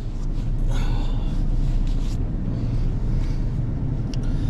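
Semi-truck's diesel engine running steadily, a low rumble heard from inside the cab.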